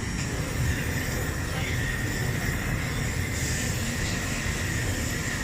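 Bell-metal melting furnace plant running: a steady low rumble with a faint, steady high whine over it.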